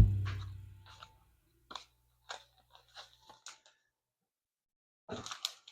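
Background music fading out, followed by a few faint, scattered short clicks and light crinkling.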